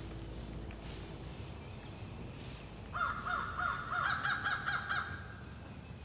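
Hand-made turkey call sounded by a hunter: a short run of yelps, about a dozen quick falling notes starting about three seconds in and coming faster toward the end. It is the call meant to make a gobbler lift its head before the shot.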